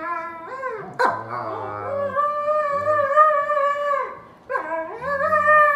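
An Alaskan Malamute and a German Shepherd vocalizing at each other in play: drawn-out, wavering howl-like whines, with one sharp sound about a second in. The long notes break off briefly after about four seconds and start again.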